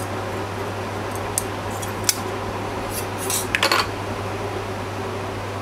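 Light metallic clicks and clinks of small tools and parts handled on an electronics repair bench, with a quick cluster of rattling clicks about three and a half seconds in, over a steady fan hum.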